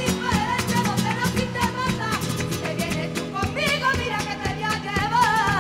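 Flamenco guitar playing bulerías, with sharp strummed accents, and a wordless sung line wavering above it, most strongly in the second half.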